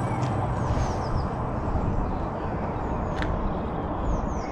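A steady rushing noise of outdoor air, with a few small birds chirping high and briefly about a second in and again near the end, and one short high chirp or click about three seconds in.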